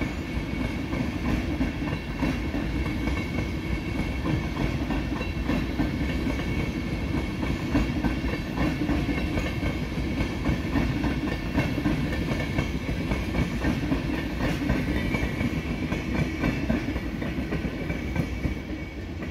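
Deutsche Bahn Intercity coaches rolling past on a through track, with a continuous rumble and a rapid run of clicks from the wheels over the rail joints.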